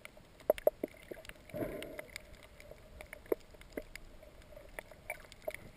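Muffled underwater sound picked up through a camera's waterproof housing in shallow water: a steady hiss of moving water, a brief surge of sloshing about one and a half seconds in, and scattered sharp clicks and knocks.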